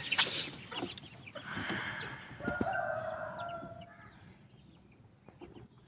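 Young chicks peeping in a string of short, high, rising-and-falling calls, with a longer, louder adult chicken call from about a second and a half in to about four seconds. A few light clicks of the wooden cage door being handled.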